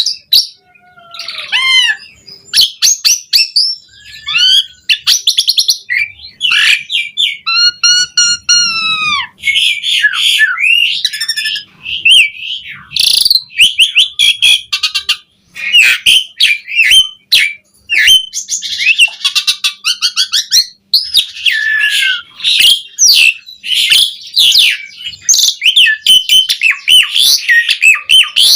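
Asian pied starling (jalak suren) singing a long, varied song without pause: whistles, pitch glides, chirps, clicks and rapid chattering, including mimicked fill phrases. About eight seconds in comes a run of arched, whistled notes.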